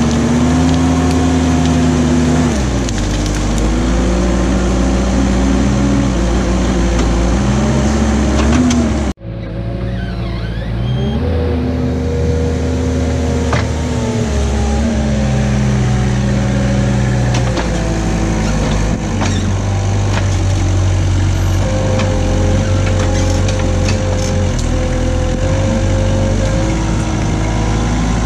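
Knikmops KM 180 TE mini loader's engine and hydraulics working the tree clamp, the engine note rising and falling as the boom lifts and the clamp grips. Branches crackle as the clamp pushes into the brush pile in the first third; the sound breaks off sharply and picks up again, with a few knocks near the end.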